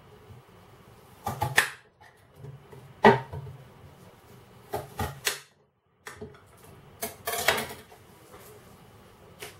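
Kitchen knife cutting onions on a hard chopping board, the blade knocking and scraping against the board in a few irregular bursts.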